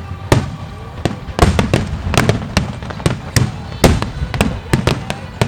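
Wide starmine firework barrage: aerial shells bursting in rapid succession, sharp bangs roughly three a second at irregular spacing, each with a short rumbling echo.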